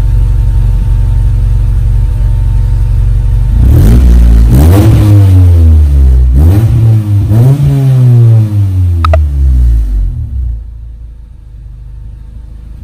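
Honda Civic EG hatchback engine heard through a newly fitted Yonaka aftermarket exhaust: a steady low drone, then from about four seconds in the revs rise and fall several times before the sound drops away near the end.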